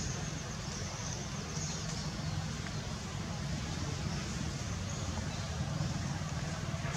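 Steady low rumble of background noise with a faint hiss above it, even throughout.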